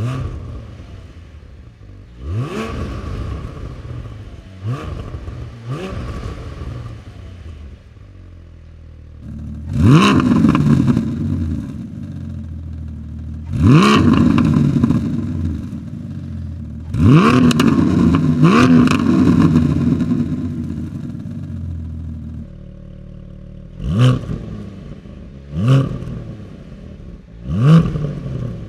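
Porsche 718 Cayman GT4's 4.0-litre flat-six engine idling and being free-revved repeatedly while stationary, each rev a quick rise and fall in pitch. The revs come in separate takes with different exhaust setups, and the middle take, with longer revs, is the loudest.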